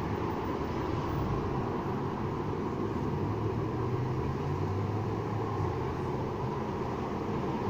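Steady road traffic noise, with a low vehicle rumble that grows louder about three seconds in and fades again about six seconds in.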